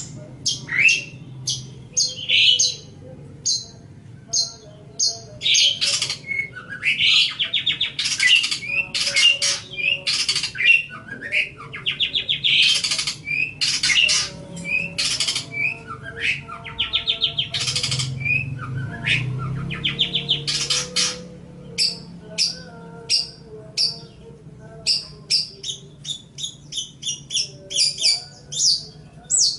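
Long-tailed shrike (cendet) singing a busy, continuous run of short high chirps mixed with harsh, raspy notes. The rasping notes dominate the middle, and rapid chirping comes near the start and near the end.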